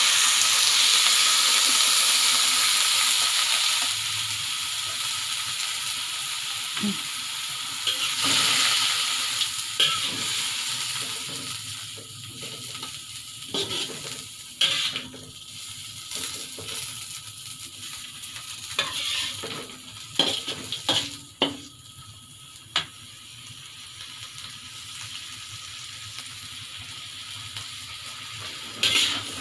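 Water spinach sizzling loudly in a hot wok as a splash of water hits the pan; the sizzle fades after about four seconds to a quieter frying. A metal spatula then scrapes and clanks against the wok now and then as the greens are stirred.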